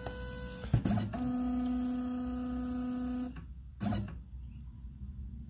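LongMill CNC's Z-axis stepper motor during a touch-plate probe cycle: a sharp knock just under a second in, then a steady whine for about two seconds as the axis moves, which stops abruptly and is followed by another knock.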